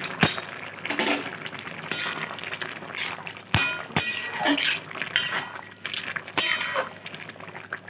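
Steel spatula scraping and knocking against a metal karai while stirring a thick vegetable curry: irregular strokes with sharp clanks every second or so and brief metallic ringing.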